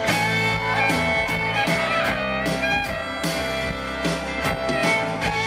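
A live country band playing the instrumental opening of a song: an acoustic guitar strummed over a steady beat, with long held and gliding notes from a pedal steel guitar.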